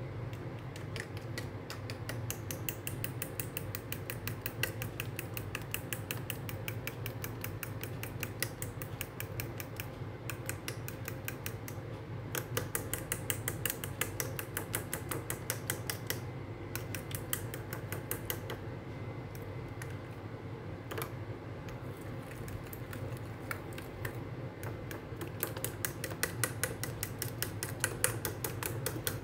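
A metal fork beating an egg into mashed banana, its tines clicking rapidly and evenly against a ceramic bowl, several clicks a second, with a few short pauses.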